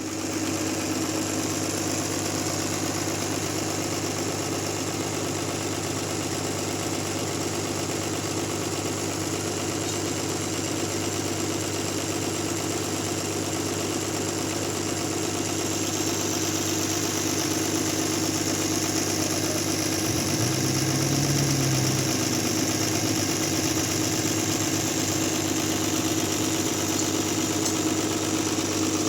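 Large sawmill machine running steadily with a constant low hum and a high hiss, with a short extra low tone about twenty seconds in.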